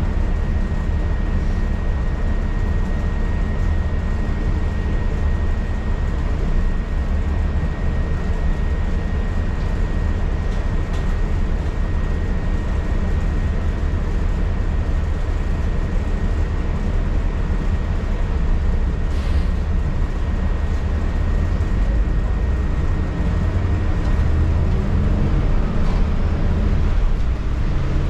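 City transit bus engine rumbling steadily, heard from inside the passenger cabin, with a thin steady high whine that stops about two-thirds of the way through. The rumble grows a little louder near the end as the bus pulls away from the stop.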